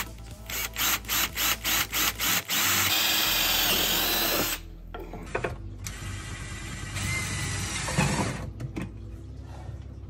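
Cordless drill boring a twist bit through a steel L bracket: a few short trigger pulses, then a steady run of about two seconds. After a cut, a Ryobi cordless drill runs for about three seconds into the thin bottom panel of a flat-pack cabinet, with a knock near the end.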